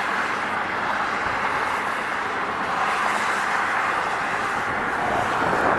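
Steady rush of road traffic passing at speed, picked up on a police body-worn camera microphone.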